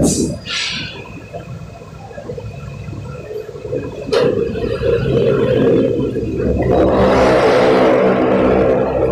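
A sharp knock, then an electric water pump starting about four seconds in: a sudden steady hum, joined from about seven seconds by loud gurgling, rushing water.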